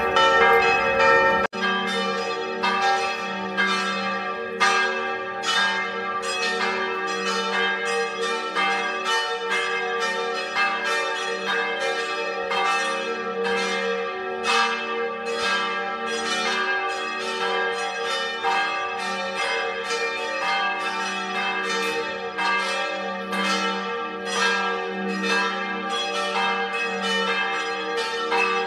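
Church bells pealing: several bells struck in steady succession, about two strikes a second, their ringing tones overlapping into a continuous peal.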